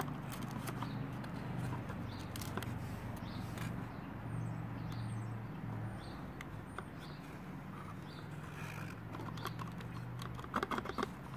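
Steady low background hum, with scattered light clicks and rustles of fingers handling a new oil filter in its cardboard box, mostly near the start and near the end. A few faint high chirps come through in the middle.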